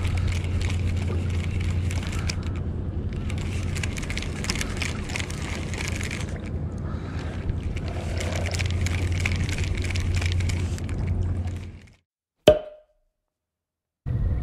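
Daiwa spinning reel being cranked in three spells, a fine ticking, whirring rattle of the handle and gears as line winds onto the spool, over a steady low rumble. The sound cuts off to silence about twelve seconds in, and a single sharp click follows.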